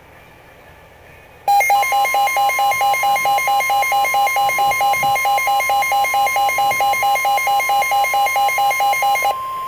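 Emergency Alert System attention signal for a severe thunderstorm warning: a loud electronic alarm that starts about a second and a half in. It combines a steady high tone with a lower tone pulsing about four times a second. Near the end the pulsing stops and only the steady tone remains.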